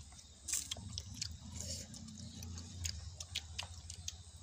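Children eating rice and meat by hand from a banana leaf: irregular clicks of chewing and lip smacking close to the microphone, over a low steady hum.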